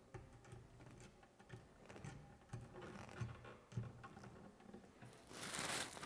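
Pliers twisting a bundle of copper neutral wires together: faint scratching and small clicks, with a louder scraping swell for about a second near the end.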